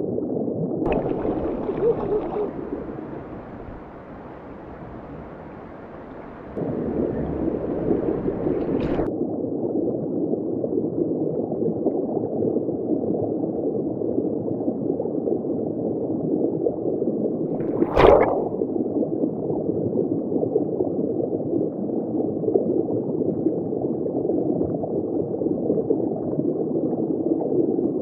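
Muffled rushing and gurgling of river current heard underwater, steady apart from a few seconds where it drops lower and then comes back abruptly. A single sharp knock about two-thirds of the way through.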